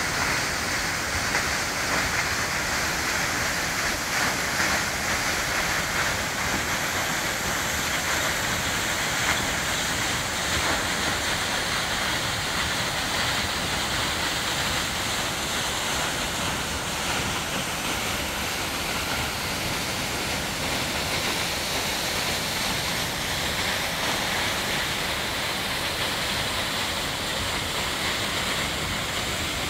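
Queen Mary Falls, a waterfall plunging over a cliff onto rocks, making a steady, even rushing sound.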